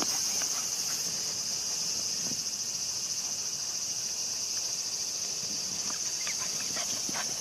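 Steady high-pitched drone of a summer insect chorus, with a few faint rustles in the grass near the end.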